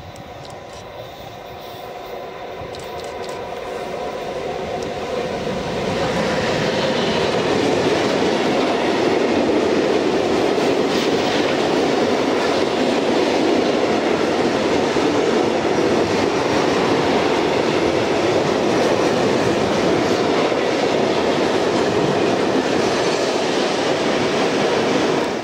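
Freight train of tank wagons hauled by an electric locomotive, approaching and passing close by. A rumble grows louder over the first several seconds, then the wagons roll past with a steady, loud rolling noise until the sound cuts off abruptly.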